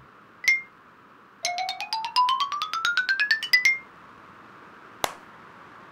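Cartoon sound effect of bright chime-like plinks: a single ping, then a fast run of about twenty plinks climbing steadily in pitch, like a xylophone glissando. A short sharp click follows near the end.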